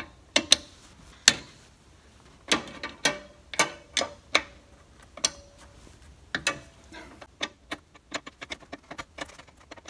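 Metal wrench clicking and knocking on the brake line nuts of a master cylinder as they are broken loose with a line wrench: separate sharp clicks every half second to a second, then a run of quicker, lighter ticks from about seven seconds in.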